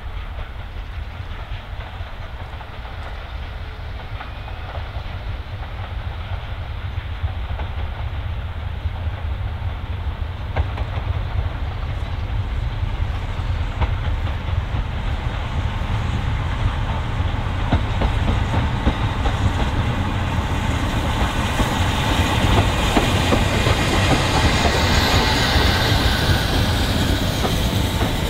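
Steam tank locomotive hauling a rake of coaches past, its wheels clicking over the rail joints. The sound grows steadily louder as the train nears and passes, loudest in the last third.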